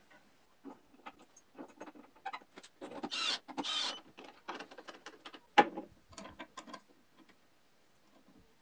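Small metal clicks, taps and clinks of hand tools and steel ball-bearing bandsaw blade guides being bolted in place with a screwdriver and open-end wrench. Two short rasping sounds come about three seconds in, and a sharper knock a couple of seconds later.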